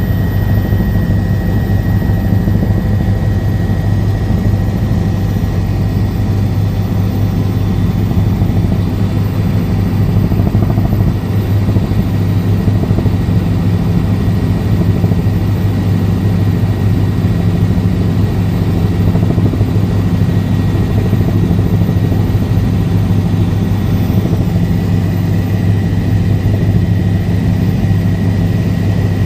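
Helicopter in flight: a steady rotor chop and engine drone, with a thin steady whine above it.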